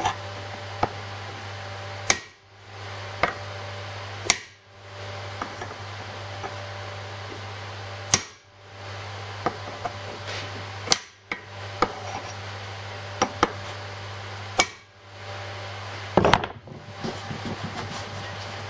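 Hammer blows on a cold chisel splitting a steel bearing collar, already ground nearly through, off a Land Rover Series front half shaft. Sharp single metallic strikes come at irregular intervals, a few seconds apart at first, with a quicker run of blows near the end as the collar cracks open.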